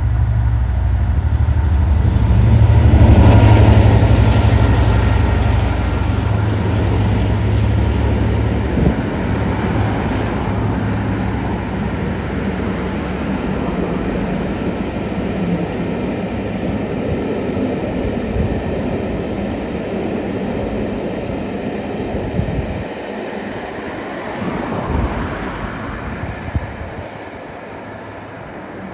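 A Class 67 diesel-electric locomotive passes with its two-stroke V12 engine working, loudest about three seconds in. The Pullman coaches then roll by with a steady clatter of wheels on rail, with a few knocks near the end as the train draws away and the sound fades.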